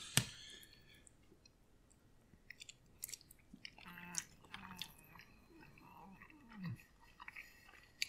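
A person chewing a mouthful of soft microwave penne pasta in spicy marinara sauce. A sharp click of the fork against the plastic tray sounds just after the start.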